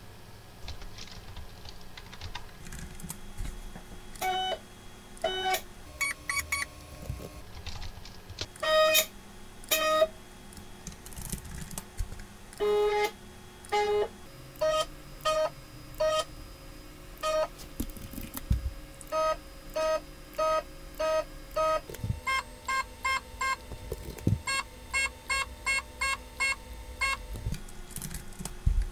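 NEMA 23 stepper motor on a homemade CNC router's X axis making short jog moves back and forth, each move a brief steady tone with a slightly different pitch from group to group. This is the X axis being calibrated for steps per millimetre. There is some keyboard typing between moves.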